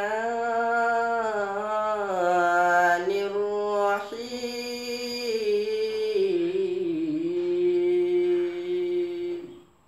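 A boy's voice chanting Quranic recitation (tilawat) in a melodic style, in long held notes that bend slowly up and down across a few phrases, ending about half a second before the end.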